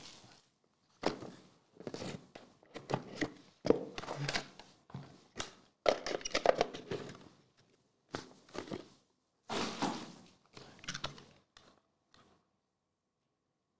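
Cardboard trading-card box and cards being handled as cards are worked out of the box: a series of short, irregular rustles, scrapes and light thunks, stopping about a second and a half before the end.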